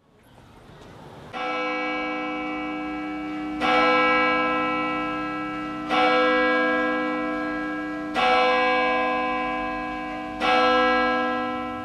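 A single church bell tolling, five slow strokes about two seconds apart, each ringing on and fading into the next.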